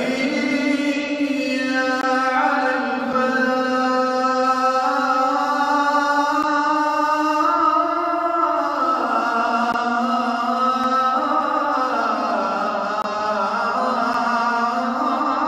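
A man's voice chanting in long held, slowly sliding notes that step lower in pitch twice.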